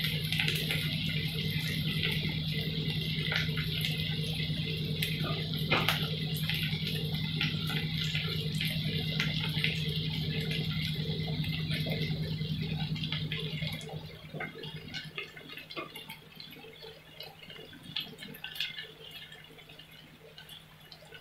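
Sliced onions frying in mustard oil in a pan, sizzling and crackling as they soften, over a steady low hum. About two-thirds of the way through the hum stops and the sizzle goes on much fainter.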